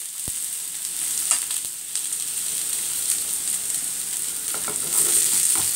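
Crushed boiled potatoes and sliced red onion sizzling in oil in a frying pan, a steady frying hiss. A few light clicks come through it, one right at the start and several near the end.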